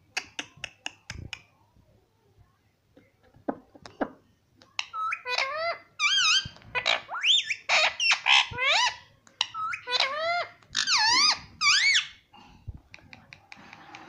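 Parakeet tapping its beak against a small mirror in a quick run of sharp clicks. From about five seconds in it chatters at its reflection in loud, squeaky chirps that rise and fall in pitch, several to a second, in runs with short pauses.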